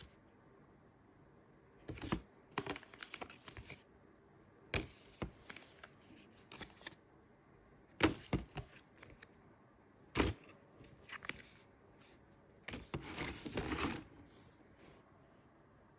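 Cosmetic packaging being handled and opened: irregular rustling and crinkling of paper and cardboard in short bursts, with a sharp click about ten seconds in.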